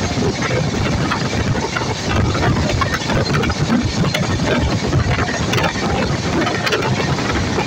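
Steady running noise of a train in motion heard from aboard at an open window, a dense rumble with faint clicks from the wheels and wind on the microphone.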